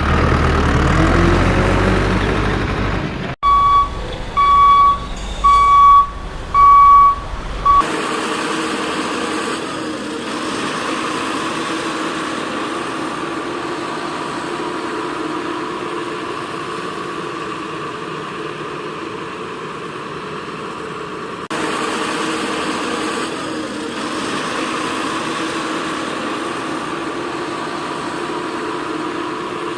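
A vehicle reversing alarm beeping five times, about once a second, followed by a steady motor hum for the rest of the stretch.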